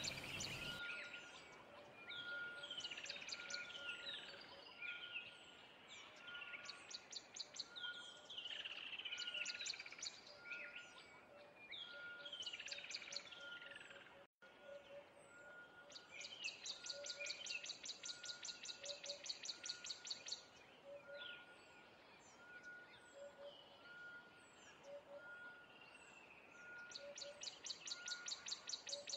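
Faint birdsong ambience: birds chirping and trilling, with rapid buzzy trills now and then and a short soft note repeating steadily. It breaks off for an instant about halfway through.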